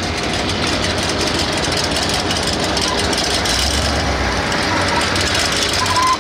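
Engine of a 1975 Ford Camper Special pickup running at low speed with a steady low rumble while the truck rolls slowly, with voices in the background.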